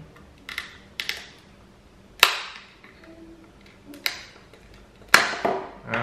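Snap-fit clips of a plastic air-conditioner remote control case cracking loose as the case is pried open along its seam: a series of sharp plastic snaps and clicks, the loudest about two seconds in and again about five seconds in.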